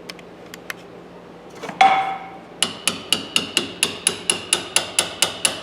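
Hammer tapping a steel pin punch to drive a pin out of a Thorsen 77J ratchet head. There is one heavier ringing strike a little under two seconds in, then a steady run of sharp metallic taps, about four a second.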